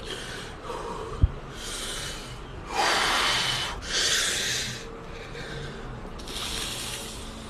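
A man crying without words: four heavy, noisy breaths, the loudest about three seconds in, with one short sharp click about a second in.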